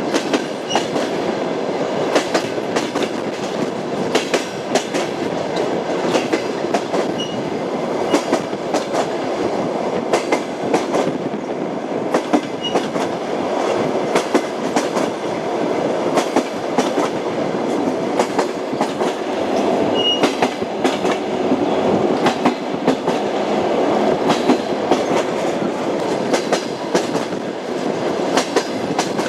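Railway carriage running along the track: a steady rumble with the clickety-clack of wheels over rail joints, and occasional brief high squeaks.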